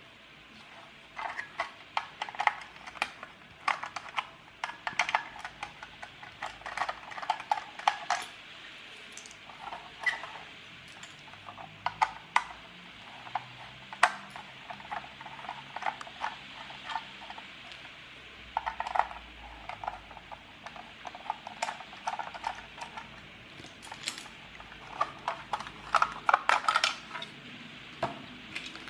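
Clockwork toy car being taken apart with a small screwdriver: irregular clicks, taps and light clatter of the plastic body, metal parts and screws being handled and set down.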